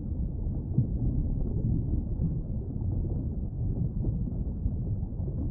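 Muffled, steady low rumble of water picked up by a camera held underwater in its waterproof housing, with nothing heard above a dull low range.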